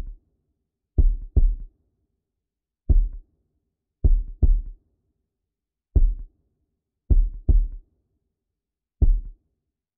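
Heartbeat sound: low thuds that alternate between a double beat and a single beat, about every one and a half seconds.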